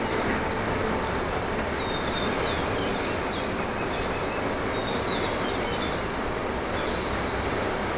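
Steady hiss of rain on a klip-lok steel roof, heard through a timber ceiling, mixed with the surf of a nature documentary playing on a TV. Over it, birds on the soundtrack chirp in short, high, falling notes, in several clusters.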